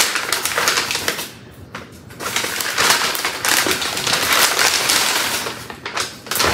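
Paper takeout bag crinkling and rustling loudly as it is opened and a bowl is pulled out of it, with a short lull about a second and a half in.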